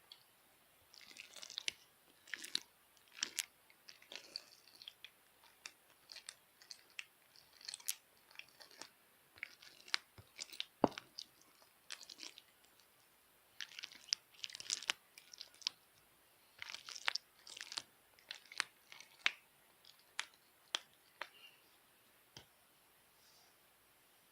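Hands squeezing and pressing a stiff slime, giving irregular clusters of sharp clicks and crackling pops with short pauses between them; one sharper snap about halfway through.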